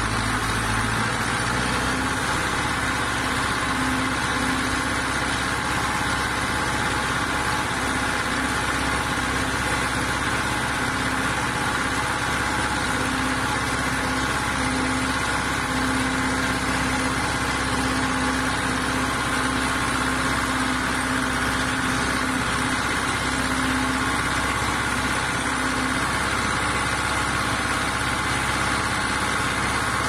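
Zetor tractor's diesel engine running steadily, heard close to its upright exhaust pipe.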